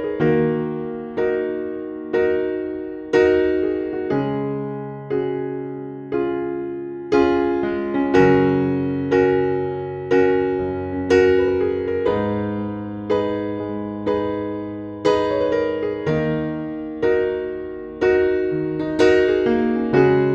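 Background music: a gentle piano piece, chords struck about once a second and left to fade over a moving bass line.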